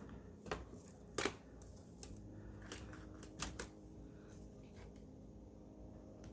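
Sharp plastic clicks and taps, about half a dozen spread unevenly, the loudest a little over a second in, from prying the keyboard out of a Dell Inspiron 15 3000 series laptop and releasing its clips.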